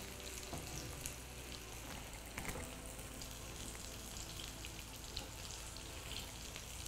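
Bean kebab patties sizzling steadily as they shallow-fry in a little oil in a nonstick frying pan.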